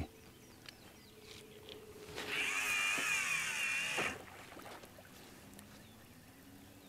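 Casting reel's spool whirring as line pays out on a cast, for about two seconds, then stopping abruptly.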